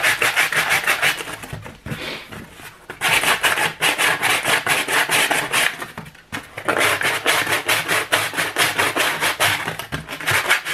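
Folded medium sandpaper rubbed by hand around the rough cut edge of a circle in cardboard, smoothing it: quick back-and-forth strokes, easing off briefly about two seconds in and again about six seconds in.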